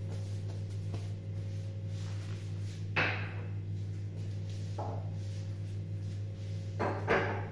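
A few sudden knocks and clunks of kitchen items being picked up and set down as a small bowl and glass oil bottles are cleared off the counter. There is one sharp knock about three seconds in, a softer one a couple of seconds later, and a louder double knock near the end, all over a steady low hum.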